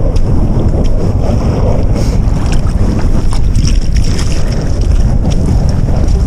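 Wind buffeting the microphone in a loud, steady low rumble, with small waves lapping at the shore. Footsteps on wet gravel and slush come in as short crunches over the middle seconds.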